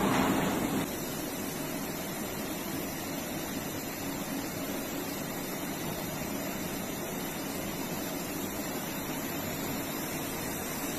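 Steady hum and hiss of machinery running, with a louder stretch that drops away about a second in.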